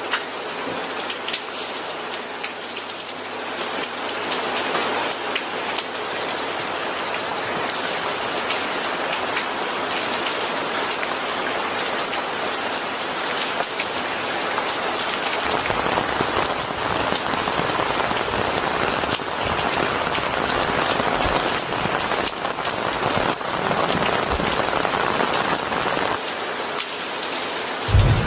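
Steady rain falling on a hard surface, a dense hiss full of individual drop patters, with a deeper rushing layer in the second half. A low rumble of thunder starts just before the end.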